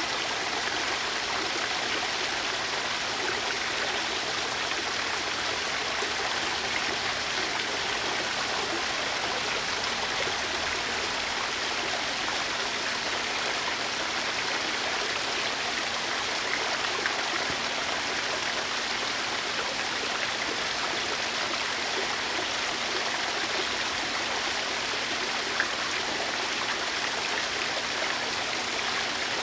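Garden waterfall water feature running: water falling and splashing in a steady, even rush.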